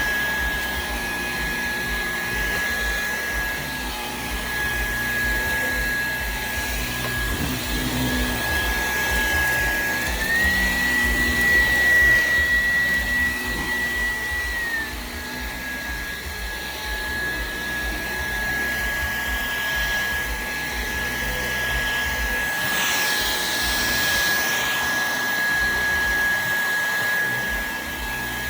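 Dyson vacuum cleaner running over carpet, its motor a steady high whine over a broad rush of suction. The whine steps up in pitch about ten seconds in and drops back about five seconds later.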